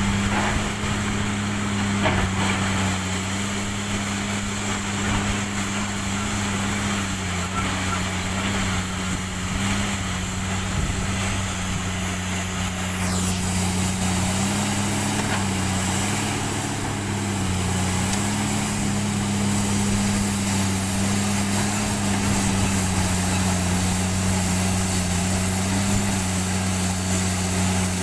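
Komatsu PC300 hydraulic excavator's diesel engine running steadily at working speed while loading coal, its note sagging briefly now and then as the hydraulics take load.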